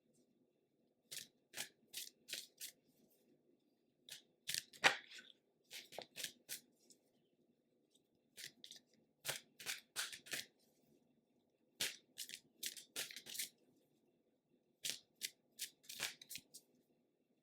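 A tarot deck being shuffled by hand: about five bouts of quick card-against-card strokes, each lasting a second or two, with short pauses between.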